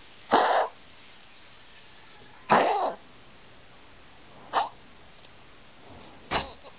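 A pet coughing in four separate short coughs about two seconds apart, the first two longer and harsher than the last two.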